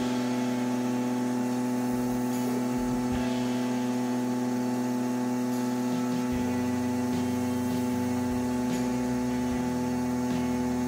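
Creality Falcon A1 enclosed laser cutter running as its head traces out parts: a steady hum with a strong low tone, and lower tones underneath that shift pitch a few times.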